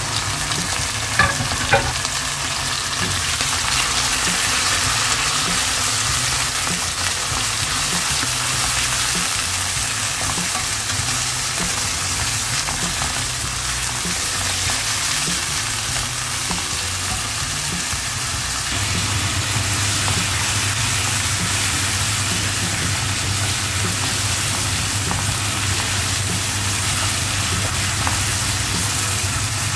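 Raw chicken pieces sizzling in hot oil in a nonstick frying pan, stirred with a spatula, with a few clicks about a second in. A low steady hum joins a little over halfway through.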